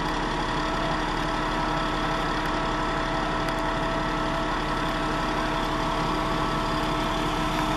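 Aerial ladder fire truck's engine running steadily at idle, a constant hum with a few steady tones over it.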